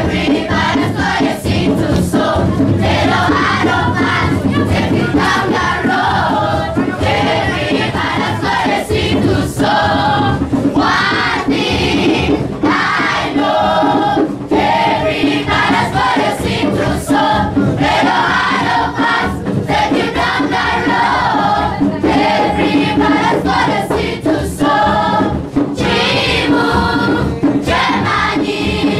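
A choir singing: many voices together in a continuous song.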